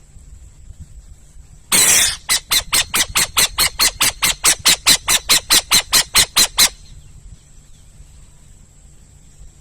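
An owl calling: one harsh screech, then a fast run of about twenty short harsh notes, about five a second, that stops abruptly.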